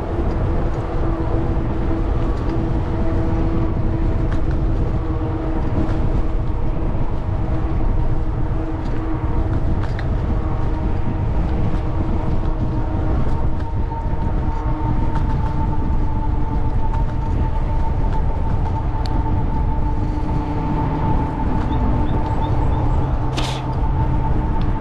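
Wind rushing over the microphone of a moving bicycle, with a steady hum of several tones underneath. A brief hiss comes near the end.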